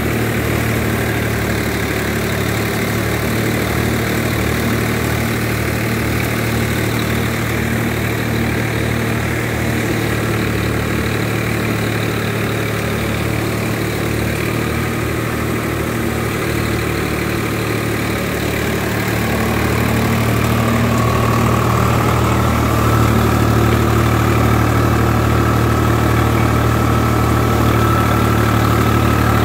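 Swaraj 744 tractor's three-cylinder diesel engine running steadily under load, driving a threshing machine whose drum adds to the noise. The sound grows slightly louder about twenty seconds in, where a steady high whine joins.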